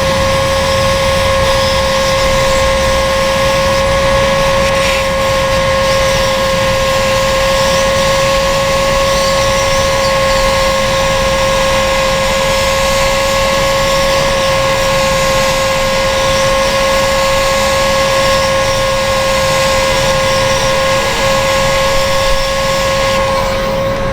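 Electric heat gun running steadily: a constant motor whine over the rush of hot air blowing, heating a small blade for smoothing the edge of a vinyl repair.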